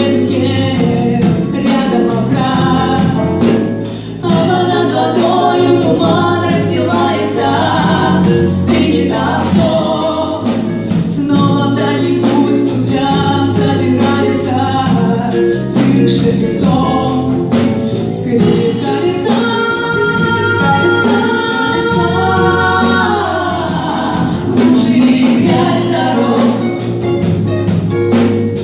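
Three women singing in harmony over a live band of electric guitars, bass guitar and drums, with a long held chord about two-thirds of the way through.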